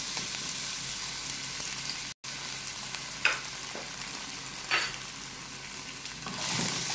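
Diced raw potatoes sizzling in hot oil in a frying pan, with a brief cut-out a little after two seconds in and a couple of short ticks. Near the end a wooden spatula stirs them and the sizzle gets louder.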